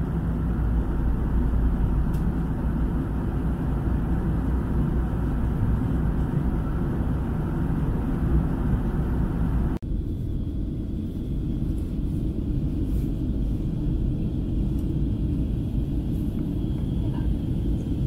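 Jet airliner cabin noise in flight: the steady rumble and rush of the engines and airflow heard inside the cabin. About ten seconds in there is a brief dropout, and after it the rumble continues with less hiss.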